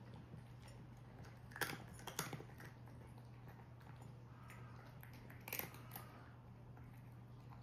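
Cat eating dry kibble from a ceramic bowl: a couple of sharp crunches around the two-second mark and two more between five and six seconds in.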